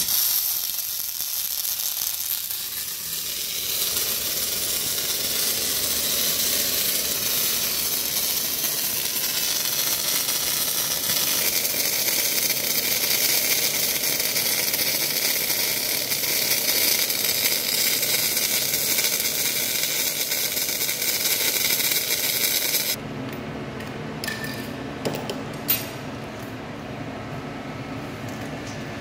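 MIG welding arc on a steel hydraulic cylinder barrel, run at 21 volts and 4.2 metres of wire a minute, giving a steady hissing crackle. It cuts off suddenly about 23 seconds in, leaving a quieter steady hum with a couple of sharp clicks.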